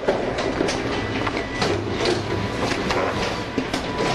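Plockmatic BM200 booklet maker running as it takes in a hand-fed set of sheets: a rapid, irregular series of mechanical clacks and knocks over a steady motor hum.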